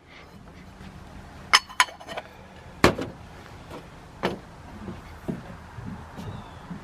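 Metal parts of a Leslie RS5T air horn being handled and set down during disassembly: a few sharp clinks and knocks, the loudest about three seconds in, followed by softer taps.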